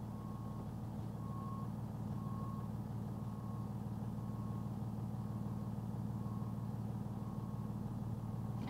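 Box truck's engine running with a steady hum as its reverse alarm beeps about once a second, heard faintly from inside the cab.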